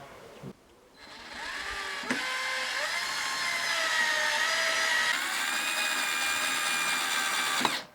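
Power tool motor speeding up about a second in and then running steadily, its pitch sagging briefly a couple of times as it takes load. It cuts off abruptly near the end.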